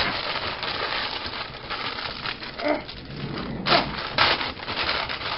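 A sheet of baking paper crinkling and rustling as it is pressed and folded into a metal baking pan, with a few louder crackles and a couple of short pitched squeaks about halfway through.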